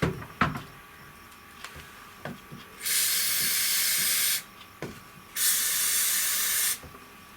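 Aerosol spray can hissing in two bursts of about a second and a half each, spraying sealant onto rivet heads. A couple of light knocks come just before.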